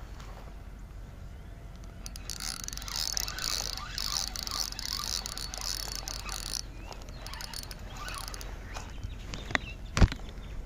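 Fishing reel being cranked as a lipless crankbait is retrieved, a fine whirring rattle lasting about four seconds. A sharp click and a short knock follow near the end.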